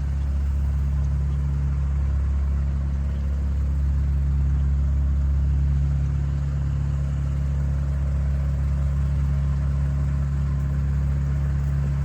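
A steady, low engine hum that holds unchanged throughout, like an idling motor.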